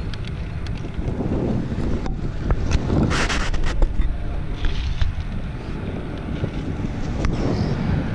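Wind buffeting the microphone of a bicycle's handlebar camera while riding, with road and tyre rumble underneath. A few sharp knocks and a brief rustling burst come about two to four seconds in, with another knock near the end.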